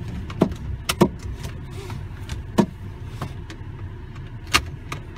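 Car engine idling, heard from inside the cabin as a steady low rumble, with a few sharp clicks and knocks, the loudest about a second in and near the end.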